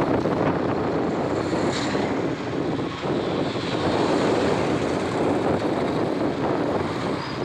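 Steady rush of wind and road noise on the microphone of a phone riding along on a moving motorcycle, with the hum of motorcycle engines mixed in.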